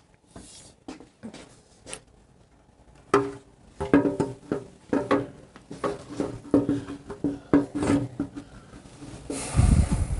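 Handling noise of a steel motorcycle gas tank being lifted and set against the frame: a string of light knocks, clunks and scrapes of metal on metal, with a louder rustle and rub near the end.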